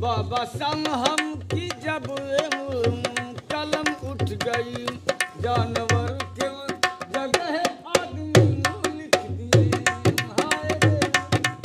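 Dholak played with the hands in a quick, steady rhythm: many sharp strokes with deep thuds from the bass head. A melody that wavers in pitch runs over the drumming.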